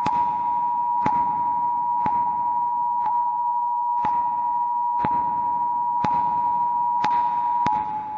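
Steady electronic tone of two close pitches held without any change in pitch, with a sharp click about once a second; it stops near the end.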